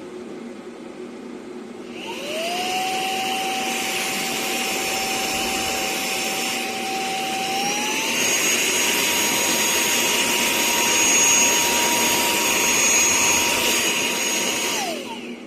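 WADEO 3-in-1 cordless handheld vacuum's brushless motor starting up to a steady whine, stepping up to a higher-pitched, louder whine about halfway through as it switches to the higher power setting, then winding down near the end.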